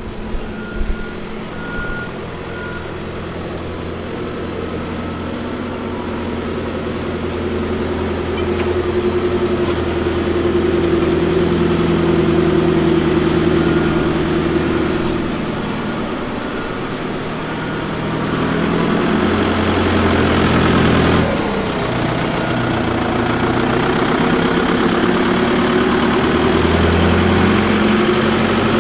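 Fendt 409 Vario tractor's four-cylinder diesel engine running as it pulls a sand-bedding spreader, growing louder as it draws near, with a change in the engine note about two-thirds of the way through.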